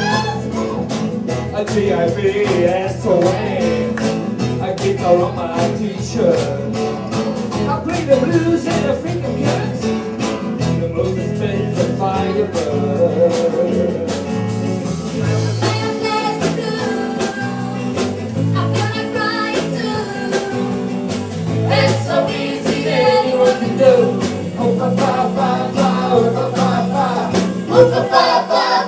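Live band playing a song: acoustic guitars strumming and drums keeping a steady beat, with women singing.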